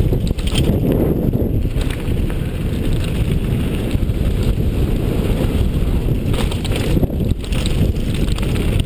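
Wind buffeting a helmet-mounted camera's microphone during a fast mountain bike descent, a loud steady rumble, with the tyres on loose gravel and the bike clattering over bumps now and then.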